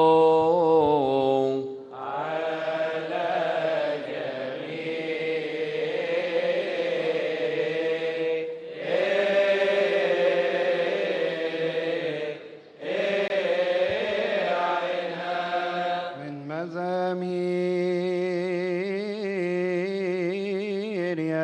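Coptic Orthodox liturgical chanting: long, ornamented sung phrases that glide between pitches, broken by a few short breath pauses.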